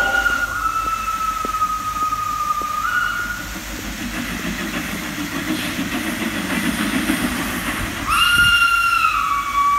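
Soundtrack of a musical fountain show played over loudspeakers: a long high held tone that sinks slightly in pitch, a quieter stretch, then a second held tone about eight seconds in.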